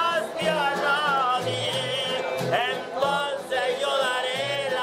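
A man and a woman singing a Cuban popular song together in long, wavering held notes, with instruments playing low notes underneath.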